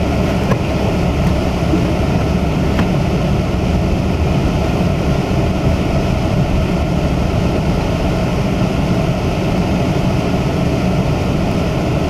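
Steady rumble of a car driving on a snow-covered street, heard from inside the cabin: engine and tyre noise.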